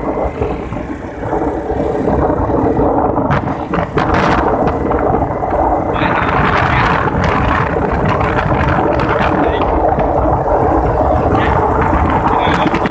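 Wind rushing over the microphone from a moving motorbike, with the motorbike's engine running steadily underneath. It gets louder about two seconds in and then holds.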